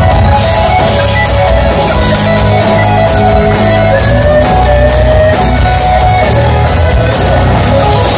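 Live rock band playing an instrumental passage: guitars over bass and a steady drum beat with cymbals, and no singing.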